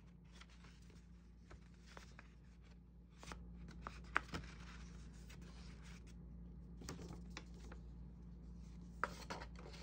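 Paper rustling as a stiff blue paper envelope is handled and turned over, a little louder from about three seconds in, with sharp paper clicks around four and nine seconds in.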